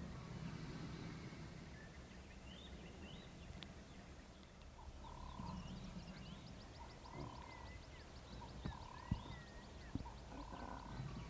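Birds calling in the bush: scattered chirps and short, repeated whistled notes, with a rapid trill in the second half, over a steady low rumble. Two sharp clicks sound near the end.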